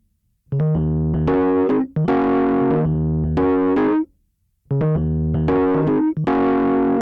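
Electric piano played through a Cratere plugin preset: phrases of sustained chords, with brief pauses about half a second in and about four seconds in.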